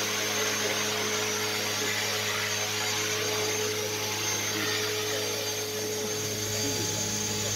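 Small electric radio-controlled model aircraft flying low, its motors and rotors making a steady whirring whine with a high-pitched edge. The low hum in it grows stronger about six seconds in.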